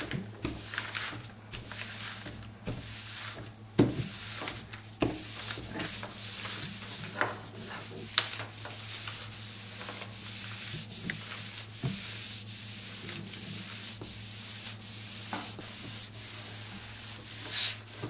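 Household electric iron sliding back and forth over silicone release paper on a rice-paper painting: the soleplate gives a dry rubbing scrape on the paper, with the paper rustling and a few sharper knocks. The ironing heat-sets the dry-mount adhesive film to the silk scroll backing.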